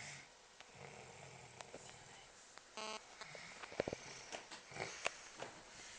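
A sleeper snoring softly, slow breathy snores in the first couple of seconds, then a short pitched snort-like sound about three seconds in, followed by faint scattered clicks and rustles.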